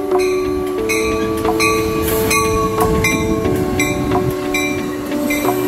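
Background music: sustained chords that change every few seconds over a steady beat.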